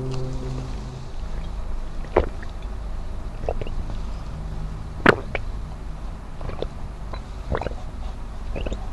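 Close-miked mouth sounds of eating and drinking: chewing a last bite of fried tilapia, then swallowing gulps of water from a glass, with scattered wet mouth clicks. The sharpest click comes about five seconds in, and a low hum fades out in the first second.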